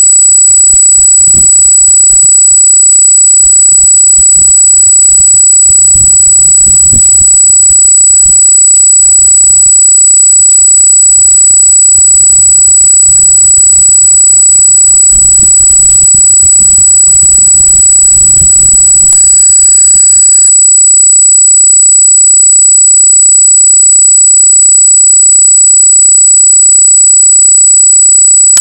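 Loud, steady high-pitched electronic squeal, an interference artifact in the trail camera's audio, made up of several fixed tones. Under it a low irregular rumble runs until about two-thirds of the way through, then stops abruptly, leaving the squeal alone.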